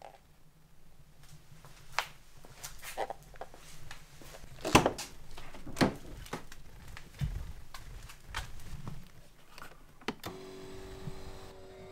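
A few knocks and clicks from handling, the loudest about five seconds in. Then, about ten seconds in, the Mercedes W212's electric seat-adjust motor starts and runs with a steady whir.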